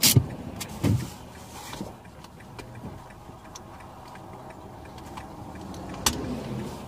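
A car's blinker relay clicking steadily while the car sits parked at the roadside, with a few knocks of things being moved inside the car at the start, just before a second in, and about six seconds in.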